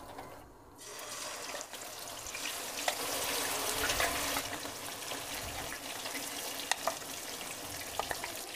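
Marinated chicken pieces going into hot oil in a karahi, sizzling steadily with scattered sharp crackles of spitting oil. The sizzle starts about a second in.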